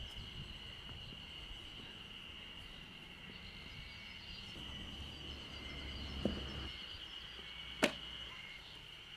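Steady high drone of insects, with a dull thud about six seconds in and a sharper knock near the end as wooden log rounds are handled and set down.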